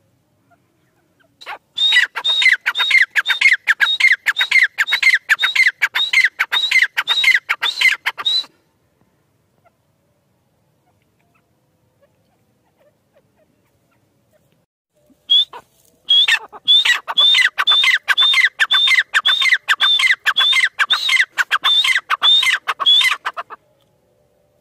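Grey francolin calling: two long runs of loud, rapidly repeated high notes, about two to three a second. The first run lasts about seven seconds and the second about eight, with a pause of several seconds between them.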